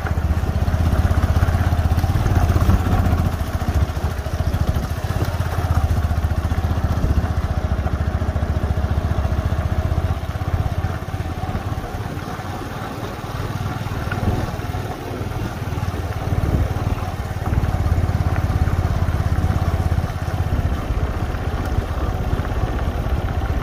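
Small motor scooter engine running at low speed, its note easing a little in the middle and then picking up again.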